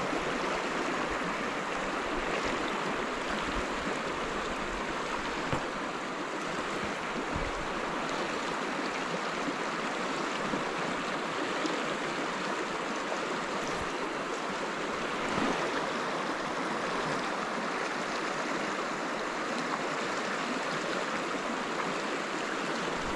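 Creek water rushing steadily over a shallow riffle, the stream running high after rain.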